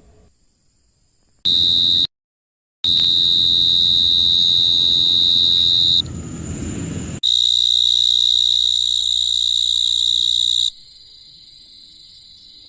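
Cricket song: a loud, steady, high-pitched trill, heard as several spliced clips with abrupt cuts, including a short dead silence about two seconds in. Near the end it drops to a much fainter trill.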